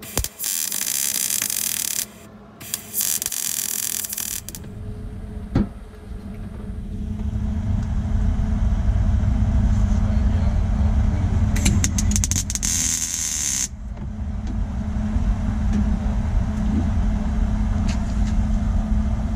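MIG welding on the car's sheet-metal floor pan: a steady hiss in two runs of about two seconds, then another run about twelve seconds in that opens with several sharp clicks. From about five seconds in, a low steady machine rumble runs underneath.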